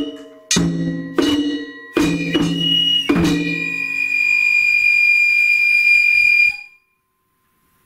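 Japanese festival hayashi ensemble playing: drum strokes with ringing overtones about every 0.6 s, then one high note held for about three seconds. The music stops abruptly, leaving silence.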